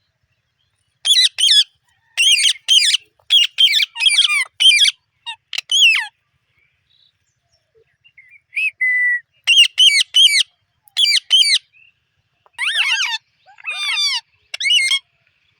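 Alexandrine parakeet (pahadi parrot) calling loud and harsh, short calls repeated in quick runs of two to four. The runs stop for about two seconds around the middle, then start again.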